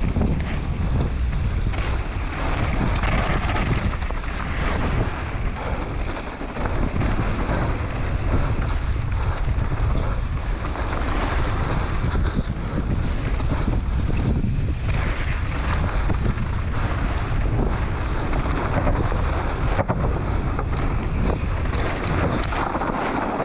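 Wind buffeting a helmet-mounted camera's microphone during a fast mountain-bike descent, over the rush of knobby tyres on dry dirt and loose gravel, with frequent small clicks and rattles from the bike.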